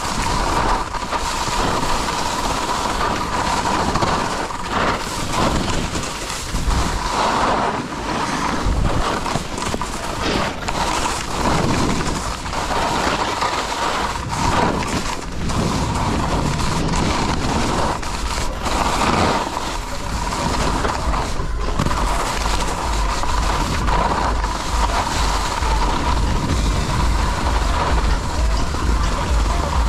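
Skis scraping and sliding over packed snow on a downhill run, with wind rushing over the microphone. The wind buffeting grows heavier near the end.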